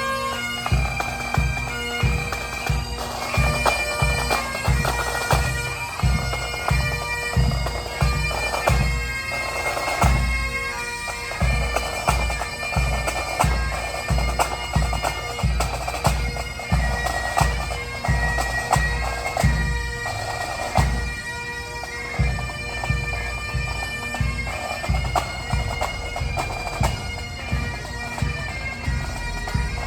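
Pipe band playing a march: Great Highland bagpipes carry a tune over steady drones while a bass drum beats the time, about two beats a second.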